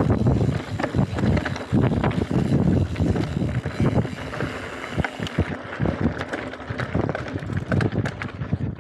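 Mountain bike rattling over a rocky gravel trail, with tyres crunching on stones and many short knocks from the bike's frame and parts, and wind buffeting the microphone. It is louder in the first half and eases after about five seconds.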